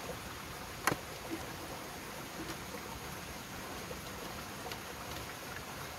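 Camping gear being handled on a plastic folding table: a sharp click about a second in, then a few faint ticks and rustles, over a steady outdoor hiss.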